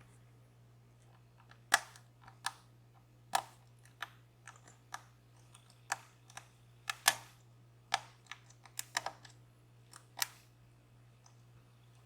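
Metal lock pick clicking and tapping inside a DOM Plura lock as its pins are worked: sharp, irregular clicks, a few much louder than the rest, over a faint steady low hum.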